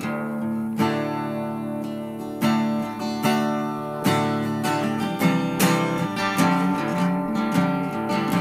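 Background music: acoustic guitar strumming and picking a steady run of chords.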